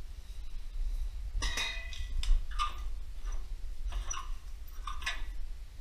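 Metal hand tools clicking and clinking against the metal parts of a small engine: a string of separate sharp clicks at uneven intervals. The loudest comes about one and a half seconds in and rings briefly.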